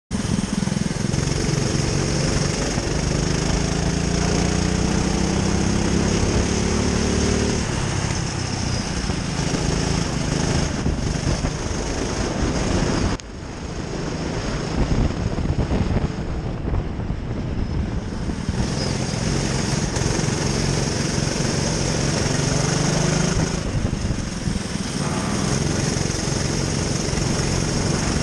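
Racing kart engine heard onboard, running hard with its pitch rising as it accelerates. The sound drops suddenly about halfway through, then builds back up as the kart accelerates again.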